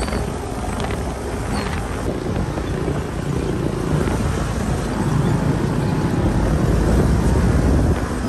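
Side-by-side UTV engine running under way, with wind rushing over the microphone in the open cab and the engines of nearby quads and buggies mixed in; the noise gets louder about five seconds in.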